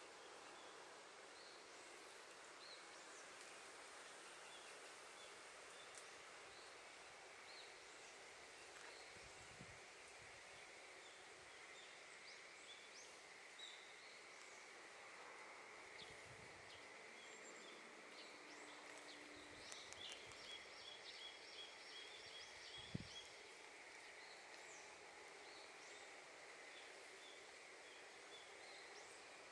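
Faint outdoor ambience: a steady hiss with a high, even hum, and scattered short bird chirps, including a quick run of repeated chirps about two-thirds of the way through. A single sharp click stands out a little after that.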